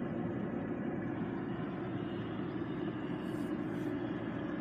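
Steady low hum inside the cabin of a Volvo estate with its systems powered up, with two faint brief rustles a little past three seconds in.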